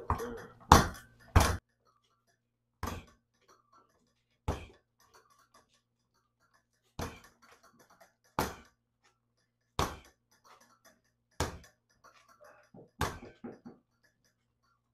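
Punches landing on a spring-mounted reflex bag's air-filled ball: a sharp slap every one to two seconds, about nine in all, with quiet between.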